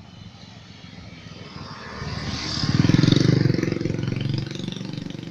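Honda Mega Pro single-cylinder engine, bored up to 260 cc, running. It revs up about two seconds in, peaks around three seconds, then drops back toward idle.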